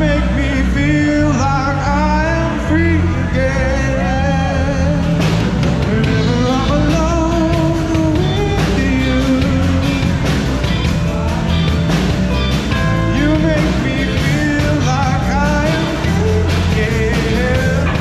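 Live rock band playing loudly: a man singing into a microphone over electric guitars, bass guitar, drums and keyboard. Picked up by a GoPro's built-in microphone, so the sound is rough.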